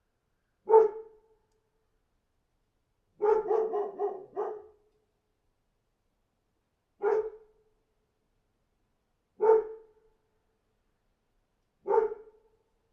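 A dog barking: single barks every two to three seconds, with a quick run of several barks a few seconds in.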